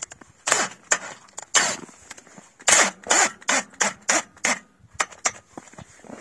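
Makita DF331D cordless drill-driver run in about a dozen short trigger bursts, its motor whine rising and falling with each, driving a screw into a galvanised steel gate hinge bracket.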